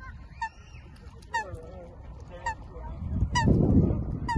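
A goose honking over and over, short calls about once a second. A louder low rumble, like wind on the microphone, swells in the second half.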